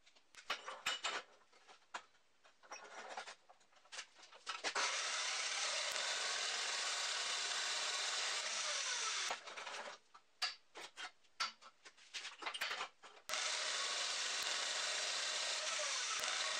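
Metal-cutting circular saw (cold saw) cutting steel bar held in its vise: a steady cutting noise from about five seconds in for about four seconds, then again from about thirteen seconds in. Scattered knocks and clanks come before and between the cuts as the steel bar is handled.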